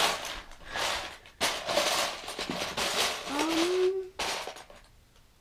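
Loose Lego bricks clattering and rattling as a hand rummages through a plastic bin of them, in three bursts.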